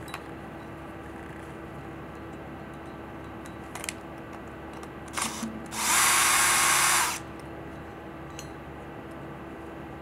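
Cordless drill driver with a 3 mm hex bit running steadily for about a second and a half, backing out the back bolt of a press brake punch. A couple of short handling noises come a little before it.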